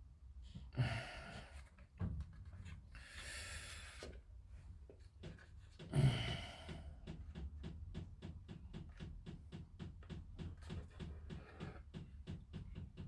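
Plastic model-kit parts being handled and test-fitted by hand: three short rustling scrapes, then an even run of light clicks, about four a second.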